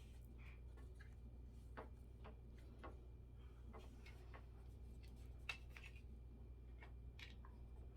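Faint, scattered clicks and taps of a drying rack's parts being handled and fitted together, over a low steady hum.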